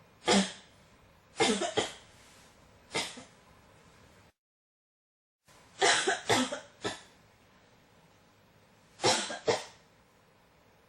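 A person coughing repeatedly in short bouts of one to four coughs, with pauses between bouts. The sound cuts out completely for about a second midway.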